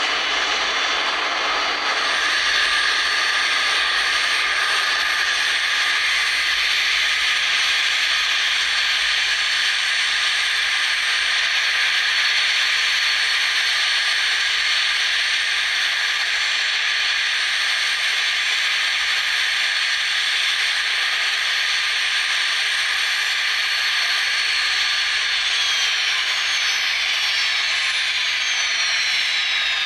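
Airbus airliner's jet engines running at taxi power, a steady hissing whine; near the end a few whine tones slide down in pitch.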